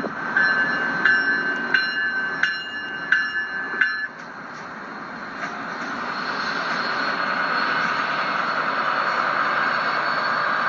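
LEGO City passenger train (set 60197) running on plastic track. For the first four seconds there is a sharp ringing click about every 0.7 s. After that a steady electric-motor whir takes over and grows louder as the train comes close.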